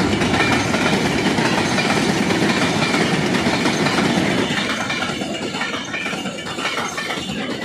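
Tank wagons of a goods train rolling past at speed without stopping: a steady rumble and clatter of steel wheels on the rails, easing slightly in the second half.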